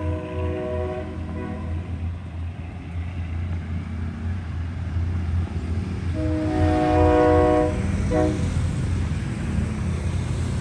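Nathan K3LA three-chime locomotive air horn sounding, heard from the rear of the train: a blast that ends about a second and a half in, a longer blast about six seconds in, then a short toot. Underneath is the steady low rumble of the moving train.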